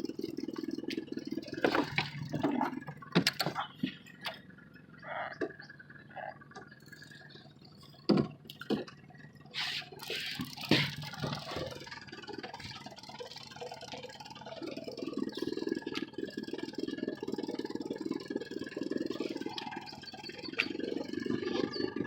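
Water sloshing and lapping against a small fishing boat's hull, with a scattered run of sharp knocks and clicks in the first half.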